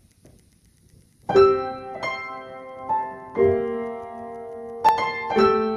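Solo piano playing a slow intro of sustained chords: after about a second of near-quiet, chords are struck every half second to a second and a half, each ringing on and fading.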